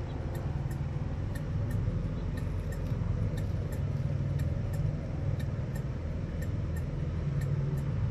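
Antique English fusee wall clock's movement ticking, a fast, even run of sharp ticks a few times a second, over a steady low rumble of background noise.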